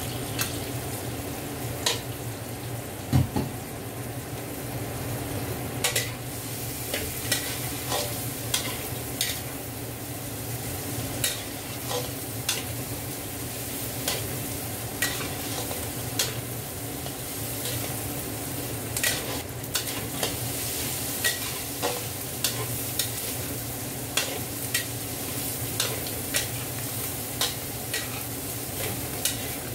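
Long-handled metal spatula scraping and knocking against a large steel wok while food is stir-fried, with a steady sizzle of frying underneath. The knocks come irregularly, about one or two a second, and the loudest is about three seconds in.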